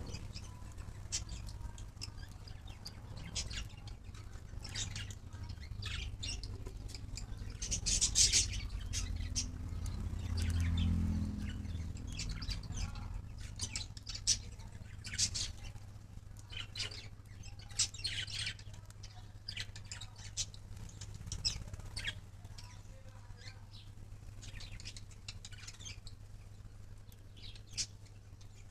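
Many birds chirping and squawking together, short overlapping high calls coming thick and fast throughout, over a low steady hum.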